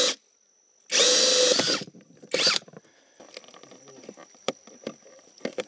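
Cordless drill spinning a hole saw through a plastic sheet in two short runs with a slightly rising whine, then a brief third burst. Faint clicks and handling follow as a rubber grommet is pressed into the new hole.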